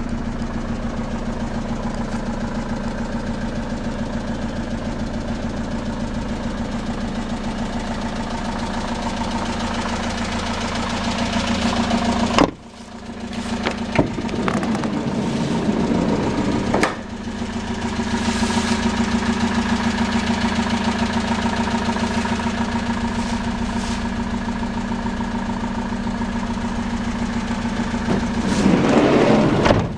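Citroën Jumper 2.2 HDi four-cylinder diesel idling steadily. Near the middle, a few sharp clicks and clunks from the rear cargo door handle and latch being worked.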